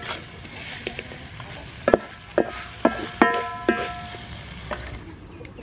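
Wooden spatula stirring squid stir-fry in a metal wok over a light sizzle, knocking against the pan five times between about two and four seconds in, each knock leaving the wok ringing briefly.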